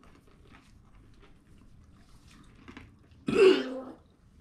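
A man gives one harsh cough, clearing his throat, about three seconds in, his throat burning from superhot chili peanut brittle.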